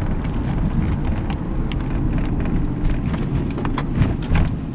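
Car driving on a road, heard from inside the car: a steady low rumble of engine and tyres, with a few short clicks and knocks near the end.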